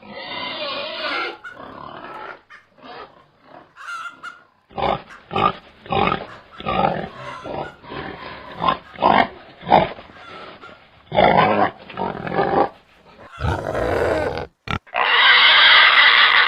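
Domestic pigs grunting: a run of short grunts about two a second, then longer, louder calls, the loudest one near the end.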